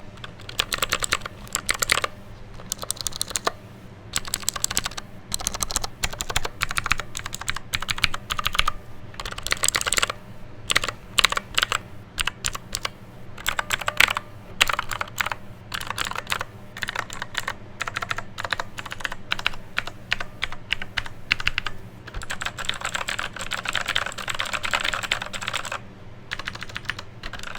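Mechanical keyboard with clicky MX blue switches being typed on: rapid clicky keystrokes in bursts, with a dense run of fast typing near the end. A steady fan hum runs underneath.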